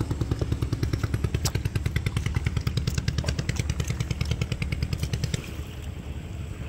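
A small engine running at a fast, even beat, which drops away about five and a half seconds in.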